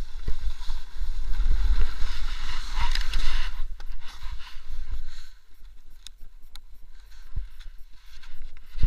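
Wind buffeting an action camera's microphone while the rider slides fast over crusty snow, a rough scraping hiss. The sliding stops about three and a half seconds in, leaving lighter wind rumble and a few sharp knocks.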